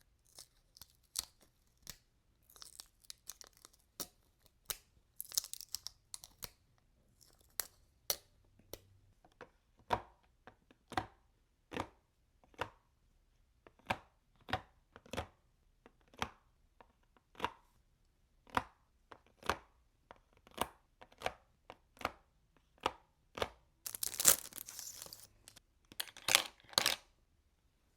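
A Himi gouache paint set being unboxed and handled: a run of sharp clicks and taps, mostly about one a second, mixed with short bursts of packaging rustling and tearing. The loudest rustle comes near the end.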